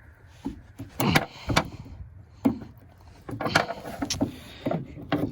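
Flathead screwdriver prying at the metal retaining clip on the end of a hood lift strut: a run of sharp, irregular metal clicks and knocks as the blade slips and catches.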